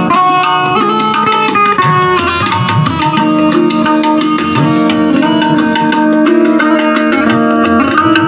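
Electric Indian banjo (a keyed, plucked string instrument) playing a Hindi film-song melody through a Stranger C15 amplifier, over a steady drum rhythm.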